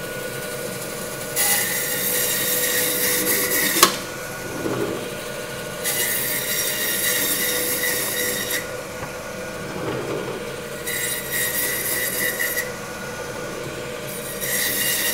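Meat bandsaw running with a steady hum, its blade cutting through the bone and dried outer crust of a bone-in dry-aged beef strip loin in four passes, each a rasping hiss lasting a couple of seconds. A sharp click comes at the end of the first cut.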